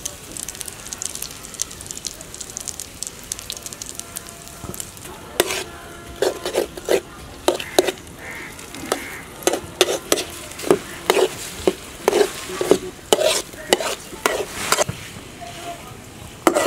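Eggs frying in oil in an aluminium pan with a steady sizzle. From about five seconds in, a metal spatula repeatedly scrapes and knocks against the pan, roughly twice a second, as the omelette is broken up and stirred.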